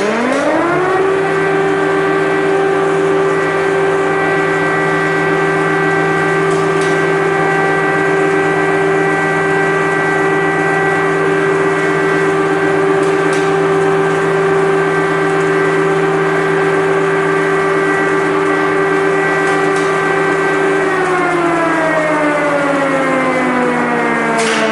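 Air-raid siren winding up to its pitch within about a second and holding one steady wail over a lower steady tone. It starts to wind down about 21 seconds in, the signal that warns of an air strike.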